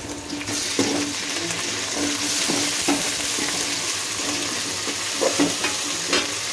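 Sliced onions, green chillies and ginger-garlic paste sizzling steadily in hot oil in a pan, the sizzle swelling about half a second in. A ladle stirs them, with a few short scrapes against the pan.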